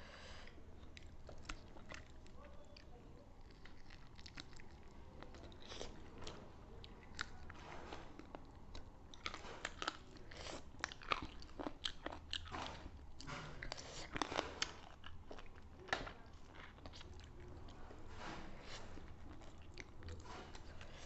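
Close-up eating sounds: chewing with crisp, crunchy bites of fried chicken, in scattered short crackles that grow busier from about halfway.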